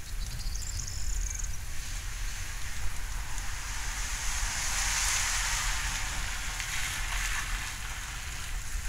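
Steady rain falling during a thunderstorm, its hiss swelling to a heavier downpour around the middle and easing again, over a low steady rumble.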